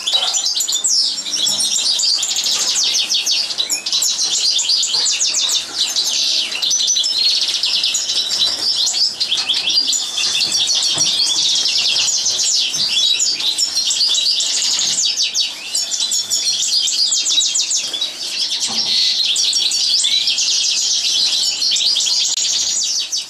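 European goldfinch singing continuously: a fast, unbroken stream of high twittering notes and trills with only brief pauses.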